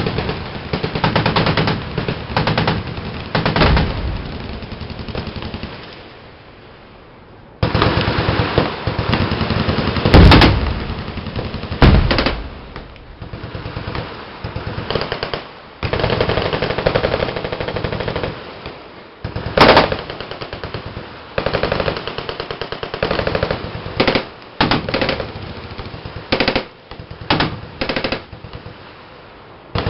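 Several machine guns firing long, overlapping automatic bursts, with a brief lull about six seconds in. A few louder single reports stand out above the rapid fire.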